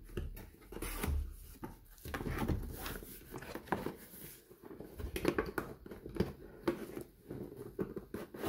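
Cardboard packaging being handled: an inner box sliding out of its sleeve and being turned over, with irregular rustling, scraping and a few light taps.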